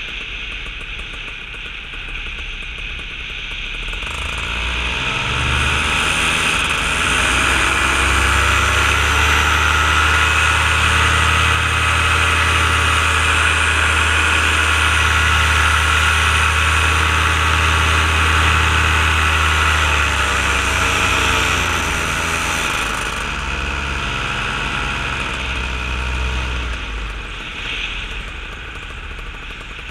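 Paramotor engine under throttle: it winds up in pitch and loudness about four seconds in, runs steadily at high power, then eases back about two-thirds of the way through to a lower, steady running.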